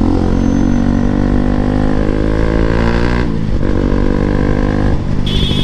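Bajaj Pulsar NS200's single-cylinder engine running through a loud aftermarket exhaust while riding. The engine note breaks off briefly about three seconds in and then picks up again.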